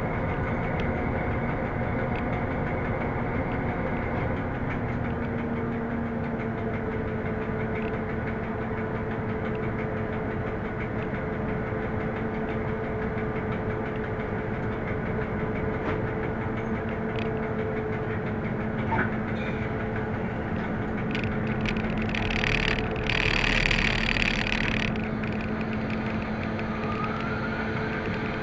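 Class 750 'brejlovec' diesel locomotive heard from its cab: the engine runs steadily over the rumble of the moving train, and its note settles into a steady hum about five seconds in. Later there is a short loud hiss lasting a few seconds, and near the end a faint whine rises and falls.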